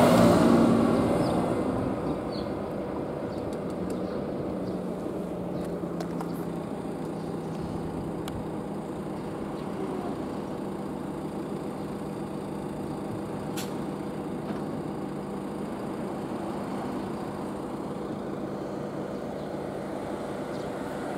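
A road vehicle passes close by, its noise fading over about two seconds, followed by a steady low engine hum.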